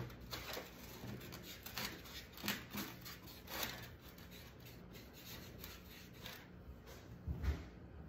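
Short scratchy rubbing strokes on wood, several in quick succession over the first four seconds, then a dull thump near the end.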